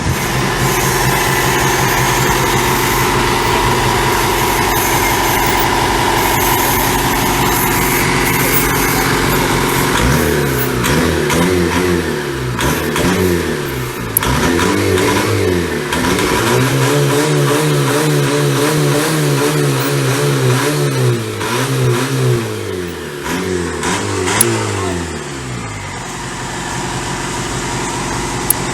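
Isuzu 4JJ1 four-cylinder turbo-diesel engine of a longtail racing boat running steadily. After about ten seconds it is revved up and down again and again. Near the end it drops back to a lower, steadier running sound.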